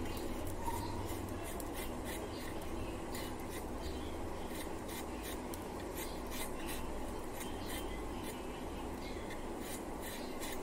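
Light, repeated scraping and rubbing strokes as something is worked against a curved kitchen blade, most likely a boti, over a steady low hum.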